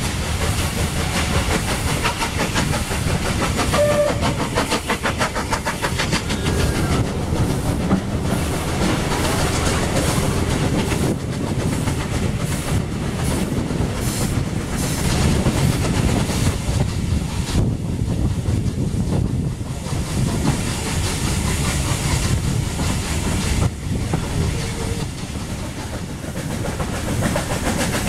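Steam-hauled heritage train running, heard from a carriage window: the steady rumble and clatter of the coach wheels over the rails, with the steam locomotive working up ahead.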